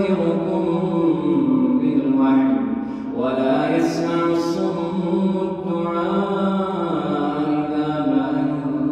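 A man's solo Quran recitation in Arabic, chanted in long held melodic notes that slide down and back up in pitch, with two short hissing 's' sounds about four seconds in.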